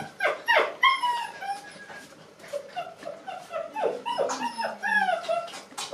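Puppy whining and yipping: a string of short, high cries, the first few dropping sharply in pitch, a brief lull, then a quick run of short yips and more whines near the end.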